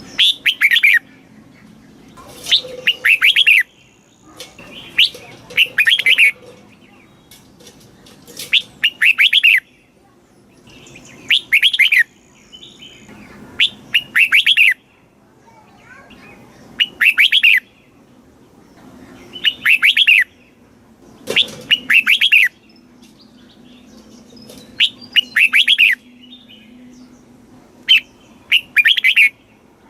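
Red-whiskered bulbul singing: short, bubbling phrases of quick notes, repeated about every two to three seconds.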